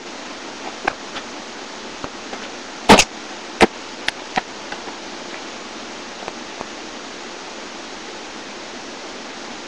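Steady microphone hiss with a few short, sharp knocks scattered through it, the loudest a quick double knock about three seconds in.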